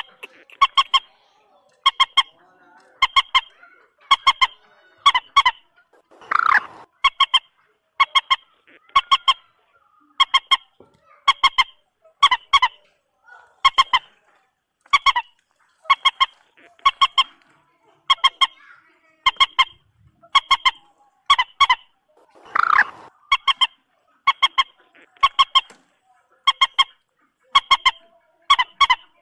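Common moorhen calling: a short, clipped double or triple note repeated about once a second, with two longer, louder calls, one about six seconds in and one near twenty-three seconds in.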